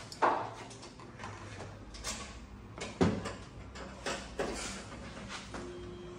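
Knocks and scrapes of the outdoor unit's cover of a split inverter air conditioner being lifted off and handled. Two louder knocks, one just after the start and one about three seconds in, with lighter clatters between.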